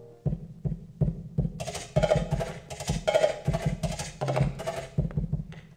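Flamenco-style percussion: a run of sharp knocks, each with a low thud, in an uneven rhythm that grows denser and louder about a second and a half in.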